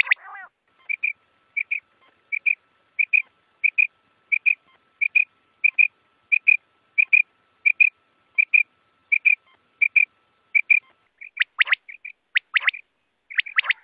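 Quail calling: a long, even series of short, clipped whistled notes, about one and a half a second, then sharper, louder calls in twos and threes near the end.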